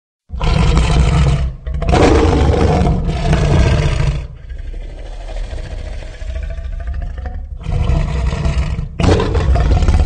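Designed Tarbosaurus roar sound effect. Loud, deep roars start suddenly just after the opening silence, with a quieter, lower growl in the middle and more roars near the end.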